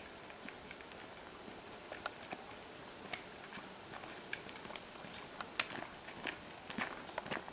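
Footsteps crunching on a gravel path together with the clicking of trekking-pole tips, faint at first and growing louder and more frequent toward the end as two walkers approach.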